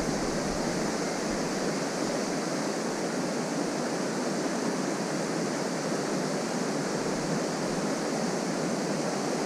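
Steady rush of fast-flowing water, a river and falls running high and strong after the previous day's heavy rain.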